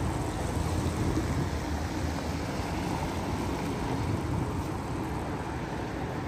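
Steady street noise of road traffic, a low, even rumble with no distinct events.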